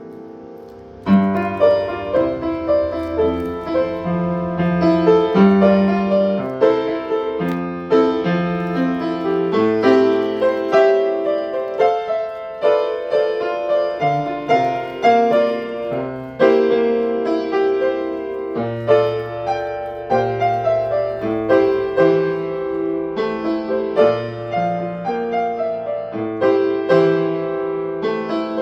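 Piano being played: chords over a moving bass line, with a new, louder phrase starting about a second in after the previous notes fade.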